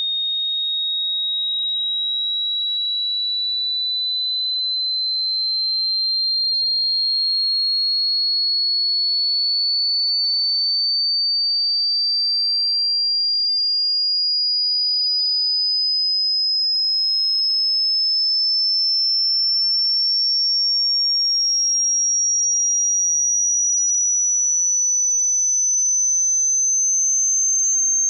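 A single high, pure sine test tone rising slowly and evenly in pitch: a frequency sweep played for a hearing test.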